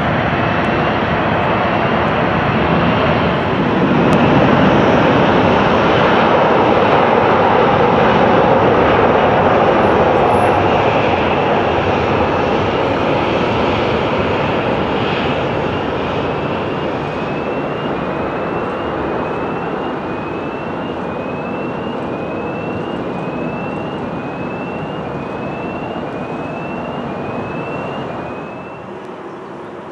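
Boeing 787-8 airliner's Rolls-Royce Trent 1000 turbofans at take-off thrust. The jet noise swells about four seconds in as the aircraft rolls down the runway, then fades slowly as it lifts off and climbs away.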